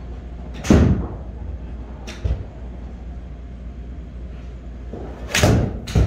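Golf 7-iron shots hit off an artificial-turf mat in a screen-golf bay: a sharp club-on-ball strike about a second in, and another strike near the end followed closely by a second smack, with a softer knock around two seconds in.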